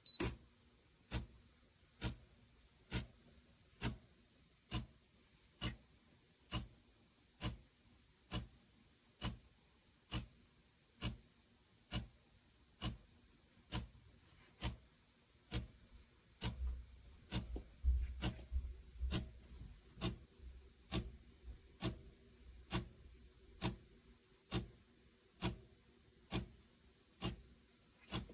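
Sharp, evenly spaced ticks, a little more than one a second, with a low rumble under them about two-thirds of the way through.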